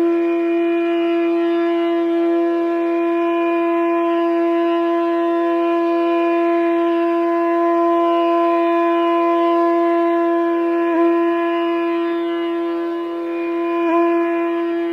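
Background music: a single long, steady wind-instrument note with rich overtones, wavering slightly twice near the end.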